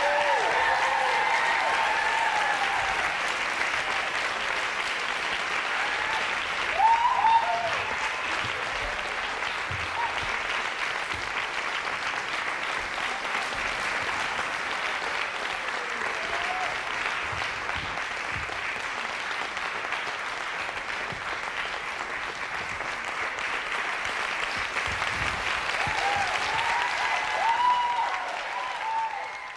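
Audience applauding steadily, with a few shouted cheers near the start, about seven seconds in, and again near the end. The applause fades out right at the close.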